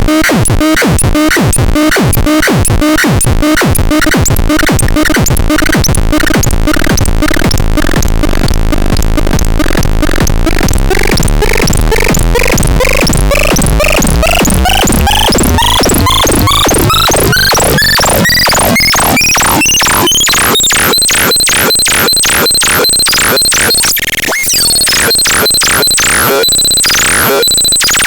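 Harsh electronic noise from the FADERAN sound device: rapid dense pulsing, with a pitch sweep rising steadily for about ten seconds that settles into steady high whining tones, and a brief drop-out near the end.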